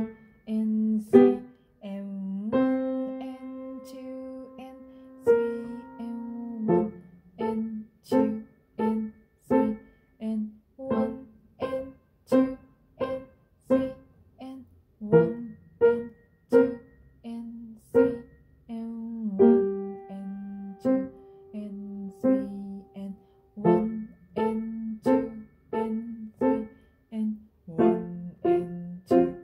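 A Steinway & Sons piano played slowly, with notes struck one at a time at an even, unhurried pace. Two chords are held for about four seconds each, one near the start and one past the middle.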